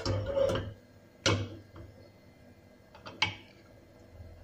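Kitchen cookware and utensils knocking together, three separate sharp knocks over about three seconds, the first followed by a short rattle or scrape.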